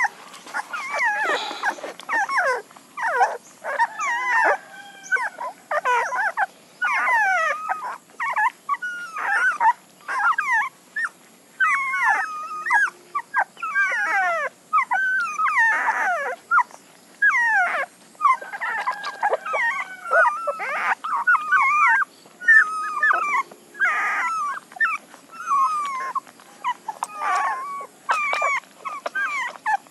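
A litter of young puppies whimpering and squealing while they nurse: a near-continuous stream of short, high, wavering whines, several overlapping at once.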